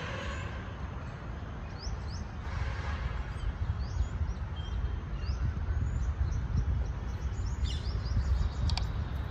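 Small birds chirping repeatedly over a steady low rumble, the chirps growing more frequent near the end.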